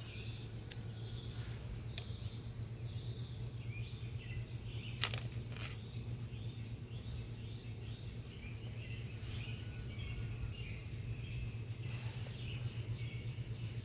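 Scattered small bird chirps and short high peeps, roughly one a second, over a steady low hum, with a sharp click about five seconds in.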